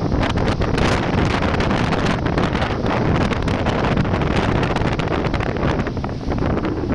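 Strong wind blowing against the microphone: a dense, loud rush heaviest in the low end, rising and falling slightly in gusts.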